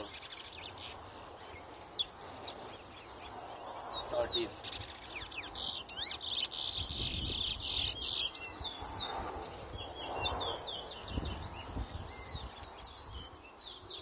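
Towa-towa seed finches singing in a song race: a steady stream of quick, sweeping whistled notes, with a denser, louder run of song from about six to eight seconds in, over low background noise.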